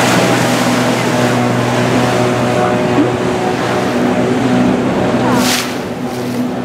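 A boat's engine running with a steady hum, heard on board as the boat moves along the canal, with water and wind rushing past. There is a brief hiss about five and a half seconds in.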